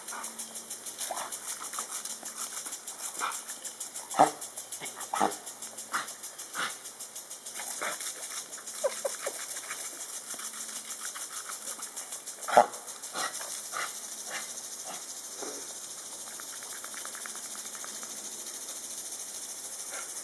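A dog barks and yips in short bursts as it snaps at a lawn sprinkler's water jet. The loudest barks come about four seconds in and twelve and a half seconds in, and they die away after about fourteen seconds. Under them the sprinkler sprays with a fast, even ticking.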